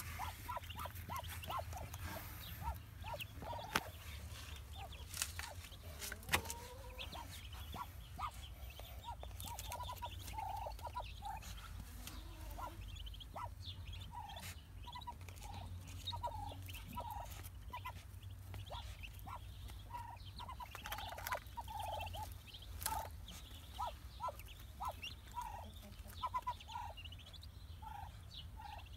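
Muscovy duck hen and her newly hatched ducklings calling in the nest: a continuous run of short calls, with a few sharp clicks and a steady low hum underneath.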